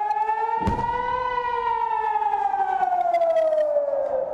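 Civil-defence air-raid siren wailing, its pitch rising slowly and then falling: a rocket alert warning of incoming rockets. A single low thump sounds about a second in.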